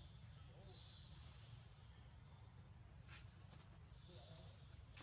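Faint forest ambience: a steady high-pitched chorus of insects buzzing, over a low steady rumble, with one faint tick about three seconds in.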